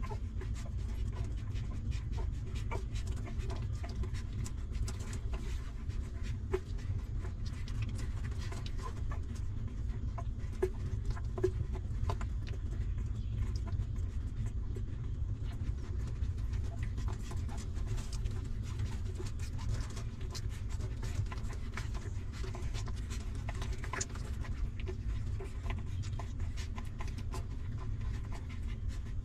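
Newborn puppies suckling at their mother's teats: many soft clicks and smacks, with a couple of short squeaks near the middle, over a steady low rumble.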